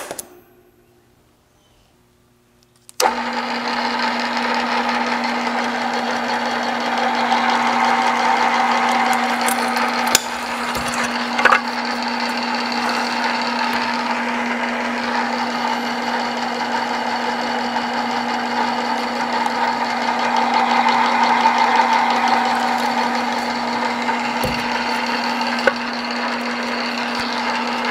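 A single sharp tap of a hammer on a center punch, then a couple of seconds of quiet. From about three seconds in, a floor drill press runs steadily with a constant motor hum while drilling holes in a thin sheet-metal plate, with a few short clicks partway through.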